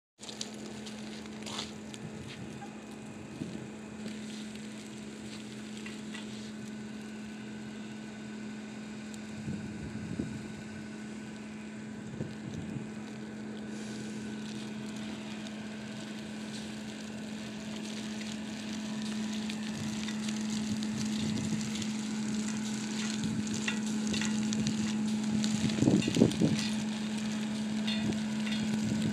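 Sleet or ice pellets hissing and crackling as they land on the pavement, growing slowly louder. A steady low hum runs underneath, and there are a few soft knocks, the loudest near the end.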